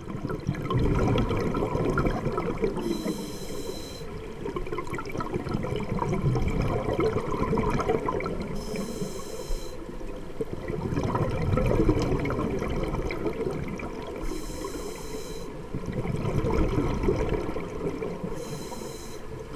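Scuba diver breathing through a regulator underwater: four short hissing inhalations about five seconds apart, each followed by a long burst of bubbling exhaled air.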